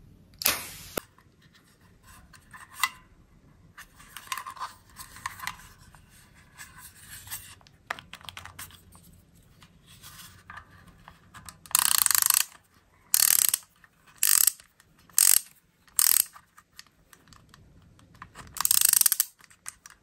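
Orange plastic toy flying-disc launcher with its trigger squeezed, its geared mechanism giving short, loud ratcheting whirs: one near the start, then six in the second half. Light plastic clicks and handling come in between.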